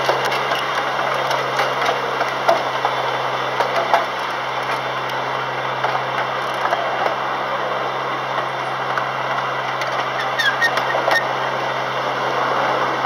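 Ride-on miniature railway train running along its track, heard from on board: a steady low engine drone under a constant rumble of wheels on rail, with a few small clicks.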